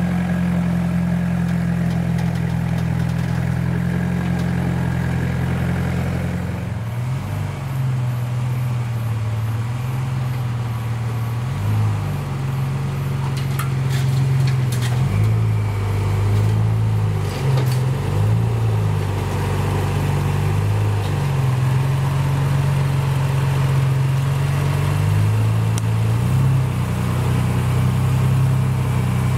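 Toyota Hilux pickup's engine running steadily, then, after a change about seven seconds in, a Nissan Patrol GU Y61's engine crawling over rock at low revs, its pitch rising and falling repeatedly.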